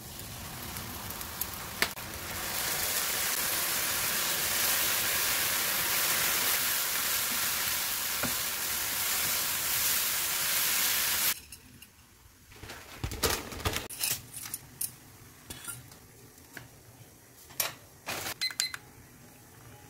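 Strips of fish cake sizzling in a frying pan as syrup and soy sauce hit the hot pan, the sizzle growing louder about two seconds in while they are stirred. Past the halfway point the sizzling cuts off suddenly, and scattered clicks and knocks of utensils follow over a pan of glass noodles boiling in water.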